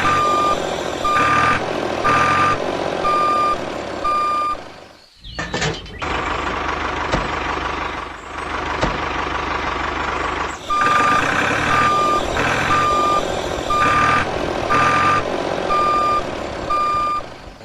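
Vehicle reversing alarm beeping at one steady pitch, about two beeps a second, over a steady running hum. The beeping breaks off about five seconds in and starts again about eleven seconds in.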